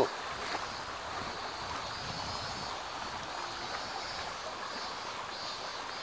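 Shallow, clear river running over a stony bed: a steady rush of flowing water.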